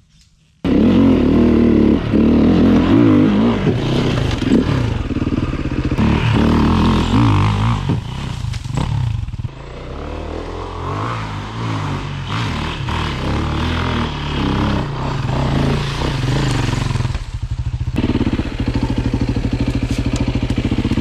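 Beta RR 450 single-cylinder four-stroke enduro engine revving hard under load, starting abruptly about a second in, its pitch rising and falling with the throttle. For the last few seconds it runs steadily at low revs.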